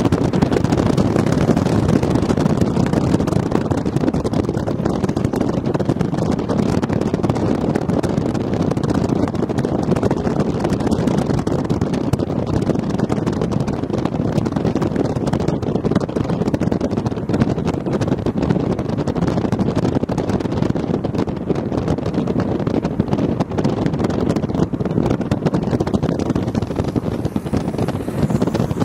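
Steady rumble of a moving vehicle's engine and road noise, with wind buffeting the microphone.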